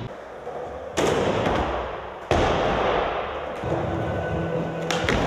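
Skateboard on a concrete floor echoing through a large hall: two loud cracks of the board striking the floor about a second and a half apart, each ringing out in the hall's echo, then the board rolling and a couple of sharp clicks near the end.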